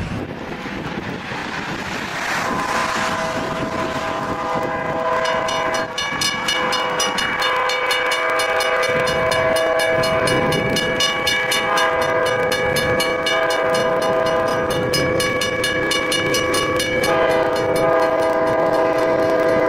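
A multi-chime train horn, blown long and steady as a chord of several notes, over the rush of a railway snowplow throwing snow. The horn comes in a few seconds in and wavers briefly near the end, with a fast regular clicking running under it.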